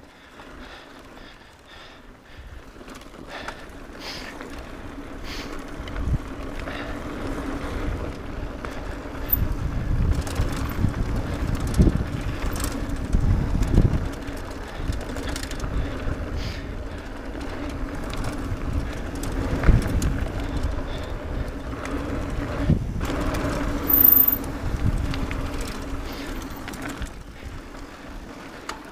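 Mountain bike riding fast down a dirt trail, heard from an on-board camera: wind rushing over the microphone and tyres rumbling on the dirt, with knocks and rattles from the bike over bumps. The noise builds over the first several seconds as the speed picks up.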